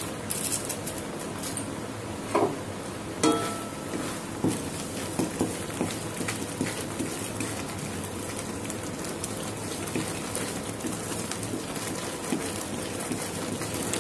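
Grated coconut and sugar syrup bubbling and sizzling in a metal pan on the stove, with a wooden spatula scraping and clicking against the pan as the mixture is stirred. There are two sharper knocks a few seconds in.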